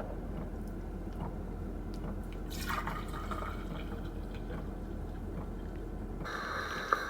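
Drip coffee maker brewing, water dripping and gurgling into the carafe with a low steady hum underneath. A steady higher tone joins about six seconds in.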